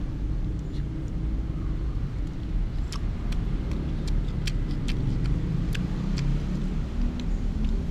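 A metal spoon clicks and scrapes against a glass plate as it scoops fried rice, with about a dozen sharp clicks from about three seconds in. Under it runs a steady low rumble.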